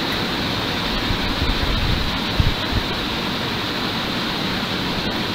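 Steady background hiss with no speech, with a few low bumps between about one and three seconds in, the strongest about two and a half seconds in.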